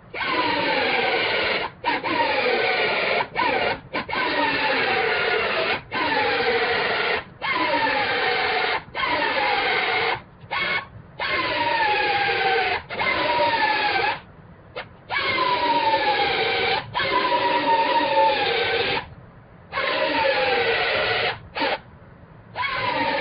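Power drill running in repeated bursts of a second or two, its pitch dropping in each burst as the bit bites into sheet metal: drilling out the spot welds that hold the pickup bedside panel.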